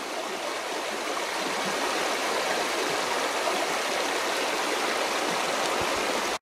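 Shallow, rocky mountain creek running over stones and gravel: a steady rush of water through the riffles.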